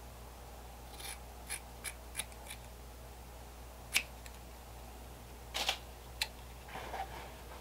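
Scissors snipping thin cloth: five quick snips in a row, then a single sharper snip about four seconds in. Near the end come a rustle of the cloth with another snip, and a softer rustle.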